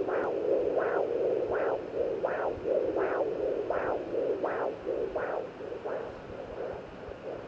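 Handheld fetal Doppler monitor giving a rhythmic pulsing whoosh over steady hiss through its speaker: strong beats about every 0.7 seconds with fainter ones between them. The beats fade about six seconds in.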